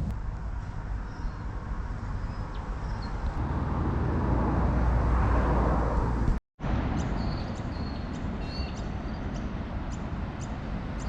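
Outdoor ambience with a steady low rumble. A passing vehicle builds to its loudest just past halfway, then the sound cuts out for an instant. Small birds chirp faintly through the second half.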